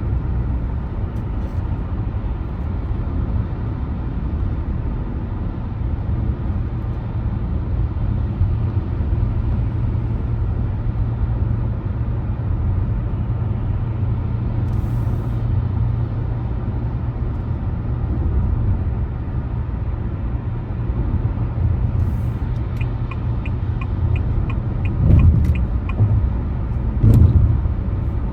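Car driving along a road, a steady low rumble of engine and tyre noise. Near the end come a run of about ten light, evenly spaced ticks and two dull thumps.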